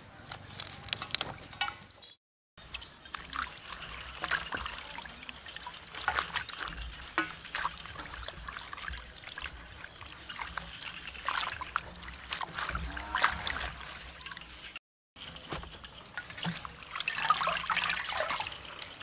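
Water splashing, sloshing and dripping in a steel basin as hands wash lemongrass stalks and leafy greens, in irregular splashes, with the sound cutting out briefly twice.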